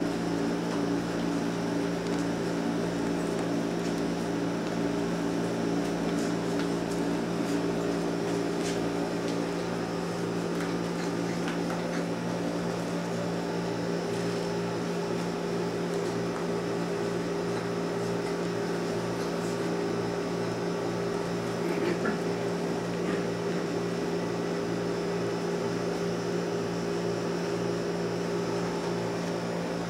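A steady low mechanical hum made of several fixed tones, with a few faint small clicks and taps now and then.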